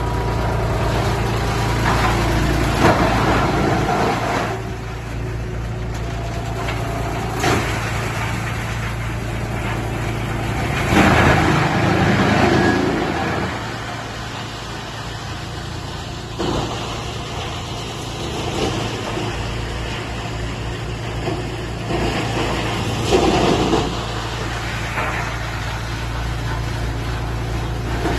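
Large comprehensive wood crusher running with a steady low machine drone. Louder, noisy surges come at uneven intervals, the biggest about eleven seconds in.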